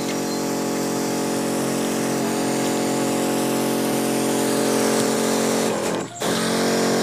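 Electric pump motors of a Pad Corp Double Bull twin-motor battery sprayer running steadily at high pressure, a whining hum under the hiss of fine spray from the nozzle. The sound cuts out briefly about six seconds in, then resumes.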